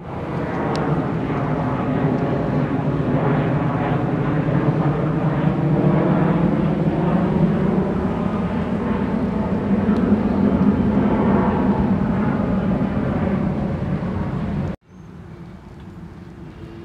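A steady engine drone with a low hum and several pitched tones, cutting off suddenly near the end, after which only a much quieter background remains.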